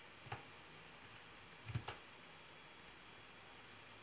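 A few faint, sharp computer mouse clicks, spaced irregularly over a low room hiss; they are the clicks of selecting a part in a 3D program.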